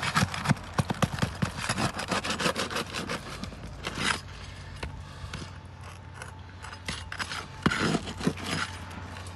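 A hand tool prying and scraping under brittle Atlas three-tab asphalt shingles, breaking them loose. Quick clicks and scrapes for the first few seconds, a quieter stretch in the middle, then more scraping near the end.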